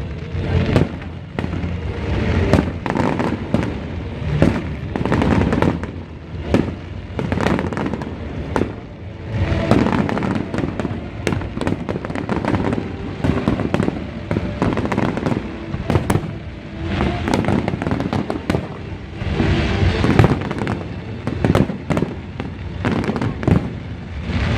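Fireworks display: aerial shells bursting in quick, overlapping succession, a dense run of booms and crackles that swells and eases.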